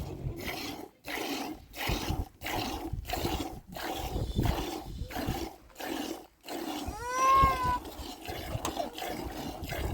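Rhythmic swishing strokes, about one and a half a second, then a single short sheep bleat, rising and falling, about seven seconds in.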